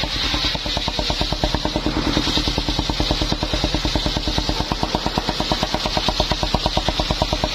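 The engine of a mobile circular-saw rig running steadily, with a rapid, even exhaust beat and a steady higher hiss above it.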